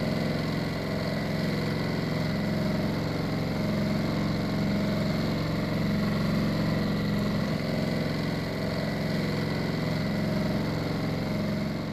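A boat's outboard motor running steadily at an even speed, with a low, rapidly pulsing drone.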